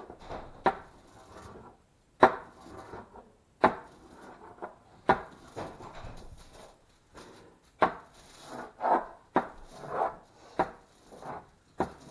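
Aluminium foil being pressed and smoothed flat on a hard surface: crinkling and rubbing broken by about eight sharp knocks, roughly one every one and a half seconds.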